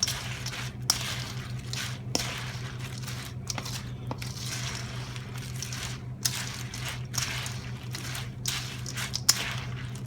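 Cornflakes coated in melted butter, honey and sugar being stirred and scraped around a large bowl: repeated crunchy, sticky rustling strokes with short breaks between them, over a steady low hum.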